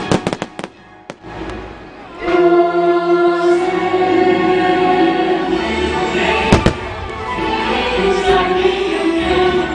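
Fireworks show: a quick string of firework cracks right at the start, then the show's music with a choir comes in with held notes about two seconds in, and a single firework bang sounds about two-thirds of the way through.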